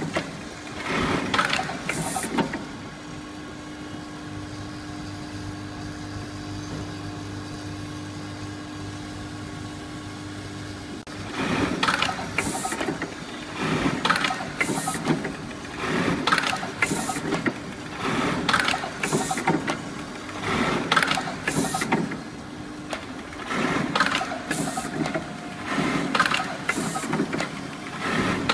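Automatic button-feeding button-attaching sewing machine at work with its button feeder. A steady hum runs from about three seconds in to about eleven, then gives way to short clattering bursts repeating about once a second.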